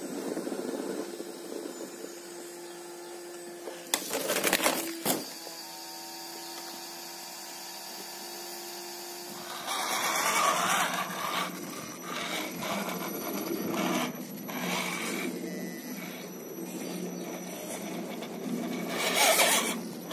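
Radio-controlled rock crawler's electric motors and gears whining as it crawls over rock. The tyres scrabble and grind on the stone, with a louder burst about four seconds in, and the grinding grows uneven about halfway through.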